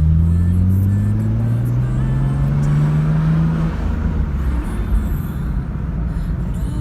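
Nissan Skyline R32 GT-R's twin-turbo straight-six accelerating: its note rises steadily for about three and a half seconds, then eases off, leaving a steady low rumble as the car drives on.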